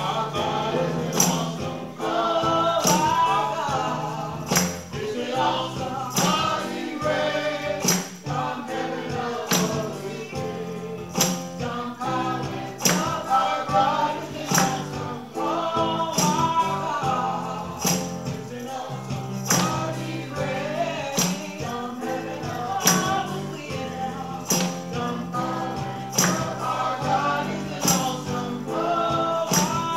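Gospel worship song: voices singing over an electronic keyboard, with a tambourine striking on a steady beat.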